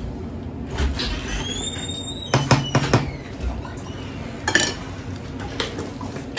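A metal spoon scooping coconut sugar from a glass jar, with a few sharp clinks and knocks against glass, and a short rising squeak about a second and a half in. The jar's plastic lid is handled near the end.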